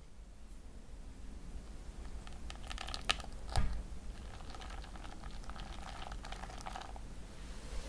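Stainless steel mousse ring being worked loose and lifted off a steamed rice cake: small clicks and scraping of the metal against the crumbly cake, with two sharper taps about three seconds in, then a softer scratchy rasp.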